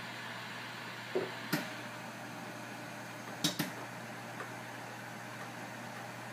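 Steady hiss and hum of a BGA rework station running its reflow cycle, with four short sharp clicks: two about a second in and two near the middle.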